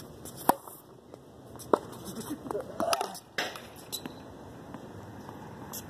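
Tennis balls struck by rackets and bouncing on a hard court: a few sharp pops, the loudest a little under two seconds in, with lighter ticks between.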